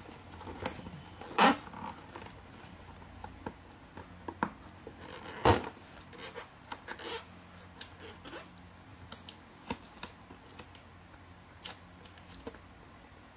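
A cardboard toy box being handled and opened by hand: scattered small clicks, taps and rustles as the box is turned and fingers pick at the clear tape sealing its flap, with two louder knocks about a second and a half and five and a half seconds in.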